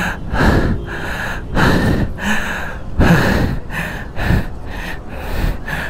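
A man breathing hard: loud, quick gasping breaths about two a second, out of breath.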